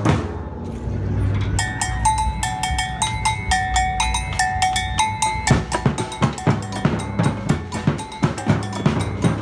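Samba drum line of surdo bass drums struck with felt mallets, with other drums. From about a second and a half in, a ringing two-note bell-like pattern plays over lighter drumming. About five and a half seconds in, the full drum line comes back in with heavy, regular strokes.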